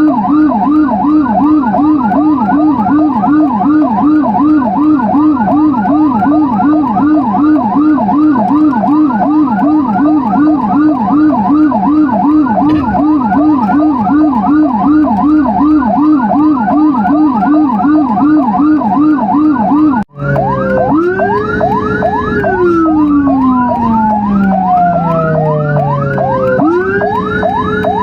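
Emergency vehicle sirens of an ambulance running with a police escort. A fast yelp cycles about three times a second. After a sudden brief break about twenty seconds in, a slow wail joins it, rising, holding high and falling away twice.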